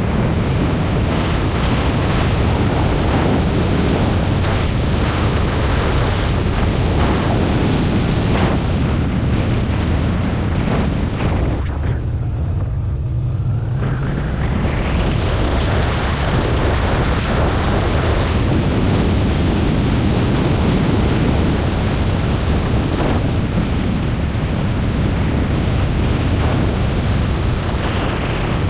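Heavy wind buffeting on the microphone of a motorcycle riding at road speed, with engine and road rumble underneath. The wind eases for a couple of seconds about twelve seconds in.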